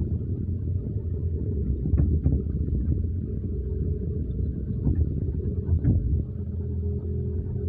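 Excavator's diesel engine running steadily while its bucket presses and smooths wet mud on a pond dike, with a few brief knocks from the bucket and arm.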